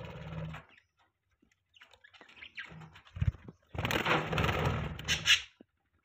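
Budgies in a cage: three bursts of rustling and scuffling, the longest about four to five seconds in, with a couple of short high chirps near its end.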